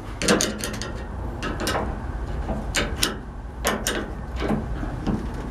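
Metal chain clinking and clicking in short clusters, about one a second, as the chain rig lowering a heavy compressor head is worked.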